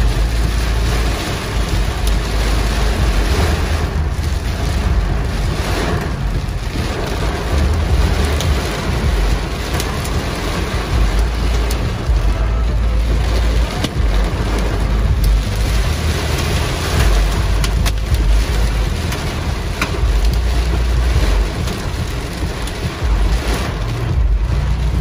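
Hail and heavy rain pelting a car's roof and windshield, heard from inside the car as a dense, loud hiss with scattered sharp ticks. A deep rumble swells and fades every few seconds under it.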